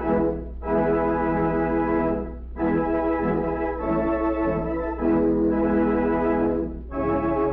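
Organ music, the programme's closing music: sustained chords in phrases of about two seconds, each followed by a brief dip, over a steady low hum.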